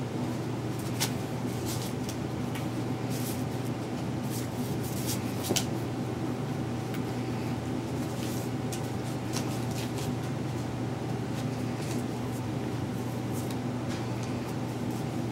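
Scattered light clicks and taps from puppies playing and scuffling, thickest in the first half, over a steady low room hum.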